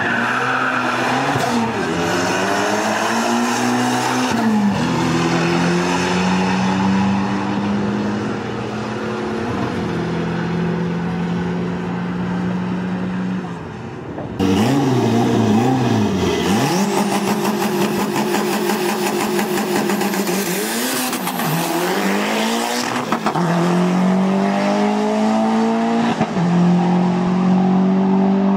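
Mitsubishi 4G63 four-cylinder engine under full-throttle drag-strip acceleration, its pitch climbing in each gear and dropping back at every upshift. About halfway through it gives way to a louder run with several quicker climbs and drops.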